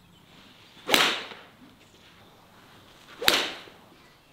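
Golf club swung hard through the ball off a range mat: two sharp strikes with a swish, a little over two seconds apart.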